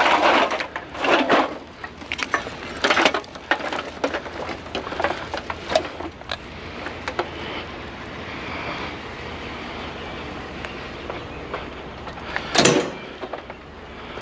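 Irregular knocks, clanks and rattles of scrap being handled and moved, over a steady low rumble. The loudest knocks come at the start, about a second in, around three seconds in and once more near the end.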